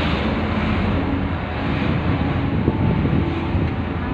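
Steady road and engine noise of a moving car, heard inside its cabin.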